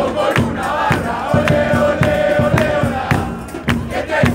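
Football supporters chanting a song in unison in the stands, over bass drums (bombos) beating a steady rhythm.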